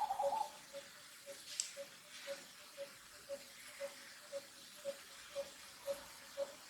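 A bird repeating a short, low, hollow note about twice a second, very evenly, with a brief, louder, higher call right at the start.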